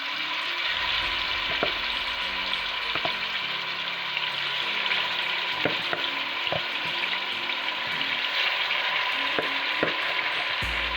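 Marinated chicken pieces frying in hot oil in a pot: a steady sizzle, with a few sharp pops now and then. This is the first stage of frying, before the chicken releases its juices.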